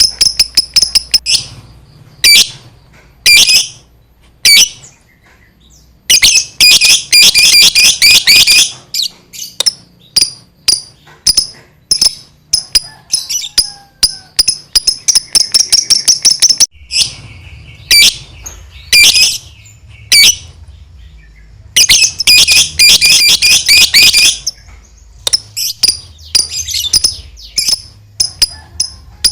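Lovebird in long 'ngekek' song: runs of rapid, high-pitched chattering, each lasting two to three seconds, broken by short bursts of sharp chips.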